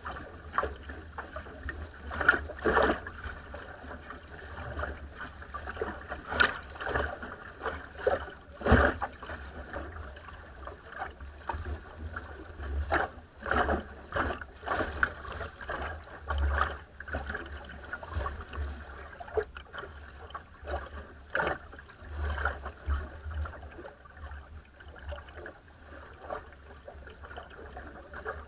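Water rushing and slapping against the bow of a small wooden sailing dinghy under way, with irregular louder splashes as it meets the chop, over a fluctuating low rumble.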